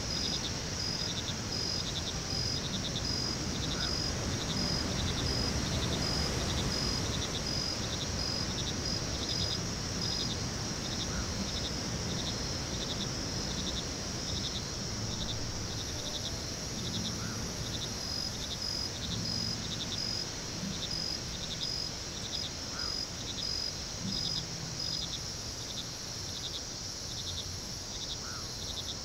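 Crickets chirping steadily in a regular pulsing rhythm, over a low rumble of background noise.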